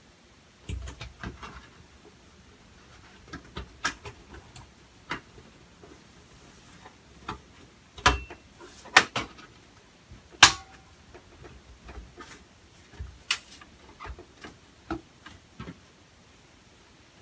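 Clicks, knocks and scrapes of a Dynamat-lined case cover being fitted by hand onto a Supermicro SuperServer mini-tower. The sharpest knocks come around the middle, over the server's faint steady fan noise.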